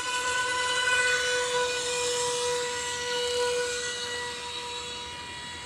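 Electric motor of a small homemade RC jet boat with a 16 mm jet thruster whining at a steady, high pitch as the boat runs flat out across the water. The whine fades somewhat over the last couple of seconds as the boat moves away.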